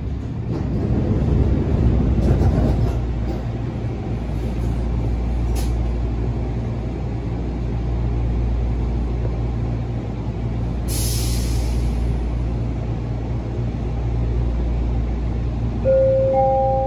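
Canada Line SkyTrain car standing at an underground station platform, its steady low hum louder in the first few seconds as it comes to rest. A hiss about a second long comes near the middle, and two rising chime notes sound near the end.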